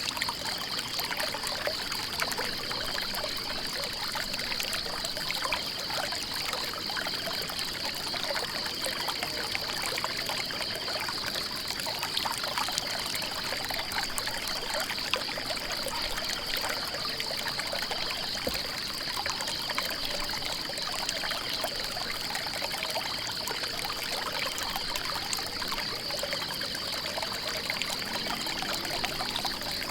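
Water trickling and splashing in a small stream, a steady even rush. A constant high, rapidly pulsing trill sits above it.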